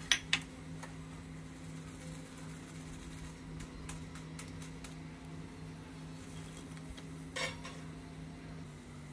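Wire-mesh skimmer clinking against a wok of frying oil as fried dal vadas are lifted out: two sharp clinks right at the start and another small clatter about seven seconds in, with scattered light ticks, over a steady low hum.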